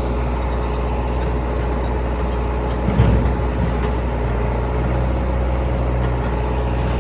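Diesel engine of a JCB 3DX backhoe loader running steadily under work, with one short loud knock about three seconds in.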